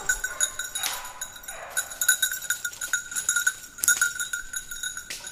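Small bell on a petit basset griffon vendéen's collar ringing steadily as the hound runs, over the rustle and crunch of dry leaf litter underfoot.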